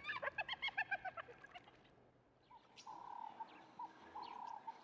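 Birds calling: a quick run of short downward-slurred notes in the first second and a half, then after a brief pause a series of longer, level whistled notes.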